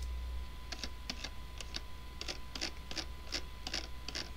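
Computer keyboard keys and mouse buttons clicking irregularly, a dozen or so clicks, over a faint steady electrical hum.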